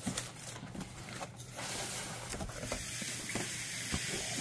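Cardboard box flaps being pulled open and hands rummaging inside the box: a steady rustle and scrape of cardboard with a few light knocks.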